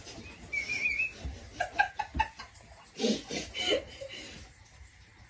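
A short, warbling whistle, then a few clicks and brief gliding vocal sounds.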